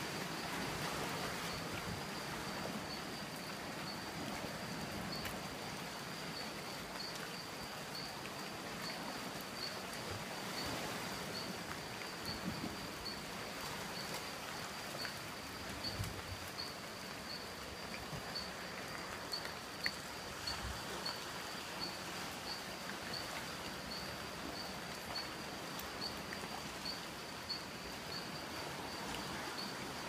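Steady rain falling on the forest leaves, mixed with surf washing on the rocks. An insect keeps up a high-pitched, evenly pulsing call over it.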